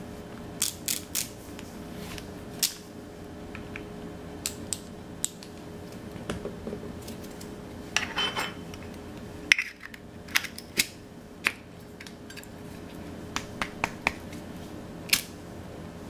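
Small metal clicks and taps from handling a Zippo lighter: a screwdriver turning the flat filler screw back into the insert, then a busier run of clicks about halfway through as the insert is pushed back into its metal case, and a last sharp click shortly before the end. A faint steady hum runs underneath.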